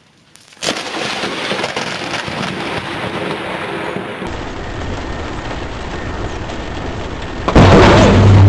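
Thunderstorm: after a moment of near quiet, a sudden loud crack of thunder about half a second in runs on as a long, even rumble mixed with rain. Near the end an even louder crash of thunder comes from a close lightning strike, heard from inside a car.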